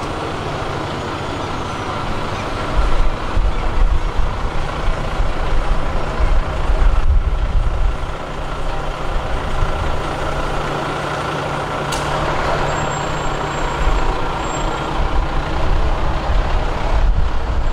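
A large road vehicle's engine running close by over steady traffic noise, with a low rumble throughout. About twelve seconds in there is a click, then a brief thin high whine.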